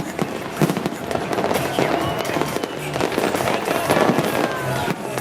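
Fireworks going off in quick succession: repeated bangs and crackling over a continuous din.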